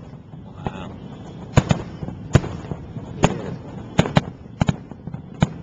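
Fireworks bursting: about nine sharp bangs at irregular intervals, two of them in quick pairs about three-quarters of the way through.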